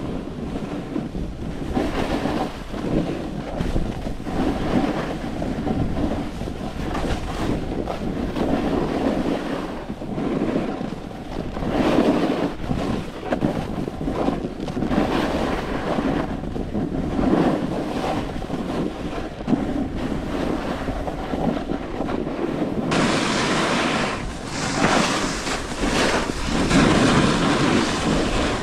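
Snowboard carving over firm, chopped-up snow: the edge scrapes and hisses, swelling with each turn every two to three seconds, mixed with wind rushing over the action camera's microphone. The hiss turns brighter and harsher about three-quarters of the way through.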